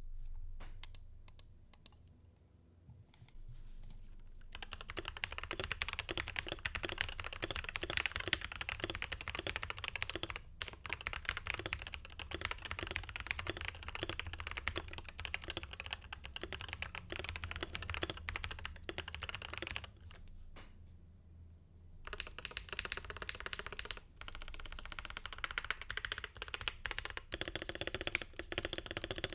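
Stock Zuoya X86 Hall-effect keyboard being typed on: a few scattered keystrokes, then fast continuous typing. The typing breaks off for about two seconds about two-thirds of the way through, then resumes.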